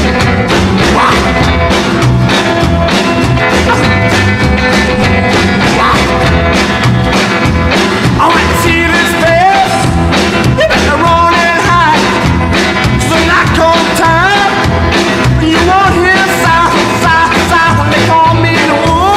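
Rockabilly-style rock and roll band music with a steady driving beat. From about halfway through, a lead melody with bending notes rides over it.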